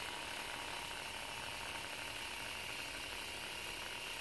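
Small electric motors of an Air Hogs Twin Thunder tandem-rotor toy RC helicopter running with a steady high whine, a little stronger near the end, as it tries to lift off on a battery that is getting low.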